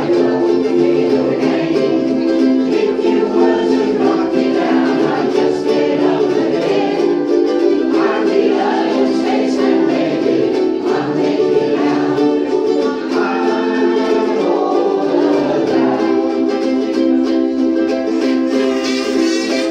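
A group of ukuleles strummed together in steady chords, with voices singing along.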